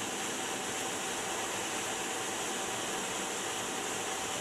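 Steady rushing cockpit noise of an A-10 Thunderbolt II in flight: airflow and its twin turbofan engines, with a thin steady whine above the hiss.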